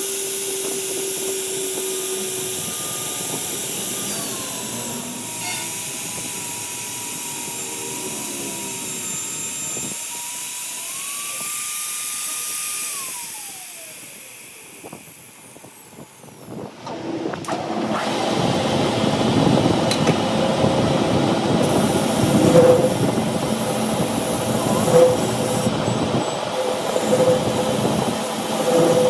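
Workshop machinery running. For the first half a steady motor whine steps up and then down in pitch. After a short lull about halfway, a rougher, noisier machining sound follows.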